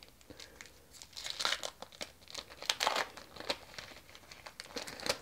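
Pokémon trading-card booster pack's foil wrapper being torn open and crinkled by hand, a run of irregular crackles; the wrapper tears open easily.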